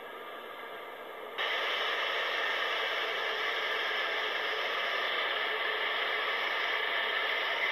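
Intermodal container freight train passing close by, heard as a steady, even hiss without distinct wheel clicks, which jumps abruptly louder about a second and a half in.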